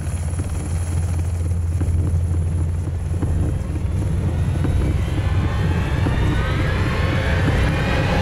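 Helicopter running close by, its rotor beating steadily with a strong low drone. Music fades in over it during the second half.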